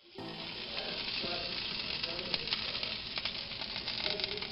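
Whole chicken roasting on an oven rotisserie spit (pollo a la brasa), its skin and dripping fat sizzling with a steady crackle of small pops.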